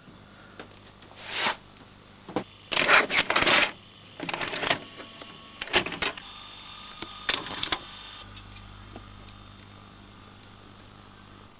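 A VHS cassette being handled and loaded into a VCR: a run of sharp plastic clatters and mechanical clunks, then a low steady hum after about eight seconds.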